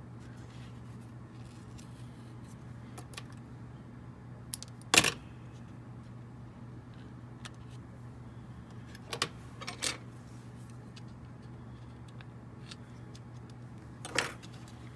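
Handling noise of a model lumber load being turned over in the hands: a few light clicks and knocks, the sharpest about five seconds in, two more near ten seconds and one near the end, over a faint steady hum.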